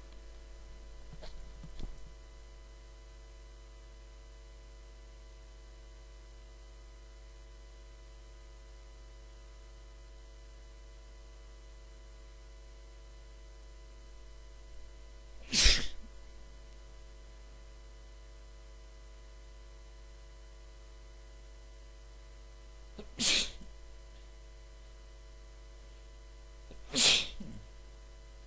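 A person sneezing three times on purpose, induced sneezes: three sharp bursts spaced several seconds apart, each with a short intake of breath just before it. The first sneeze is the loudest. A steady electrical hum runs underneath.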